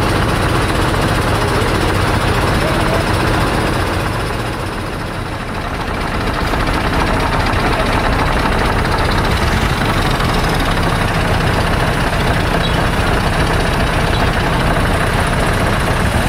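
Road vehicle engine running steadily with road noise and a low rumble, easing off briefly about five seconds in.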